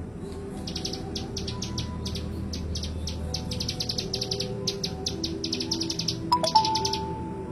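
Hill prinia (ciblek gunung) singing: rapid runs of sharp, high, ticking notes in quick bursts, with a louder, sudden note near the end.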